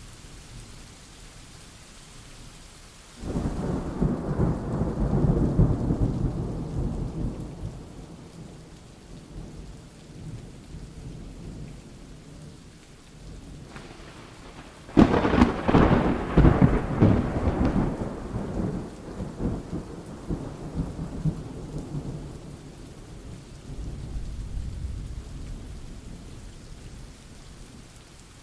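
Steady rain with rolling thunder. A low rumble swells about three seconds in and dies away over several seconds; about halfway through a sharper, louder thunderclap breaks suddenly and rolls off, with a fainter rumble near the end.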